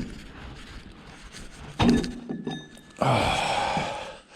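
A heavy metal clunk with a brief ring, then about a second later a longer rasping scrape, as parts are worked loose from a skid steer's damaged drive housing.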